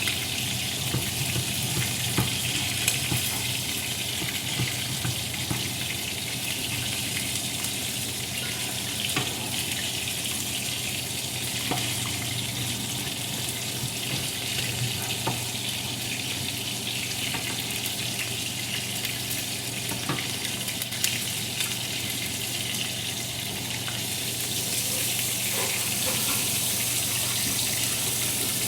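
Chicken drumsticks frying in oil in a pan, a steady sizzle with scattered small crackles and clicks over a low steady hum. The sizzle grows louder near the end.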